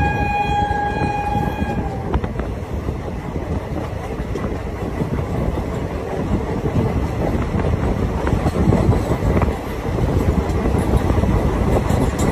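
Indian Railways passenger train running at speed, heard from one of its coaches: a steady rumble of wheels on the rails and rushing air. The train's horn sounds one held tone that stops about two seconds in.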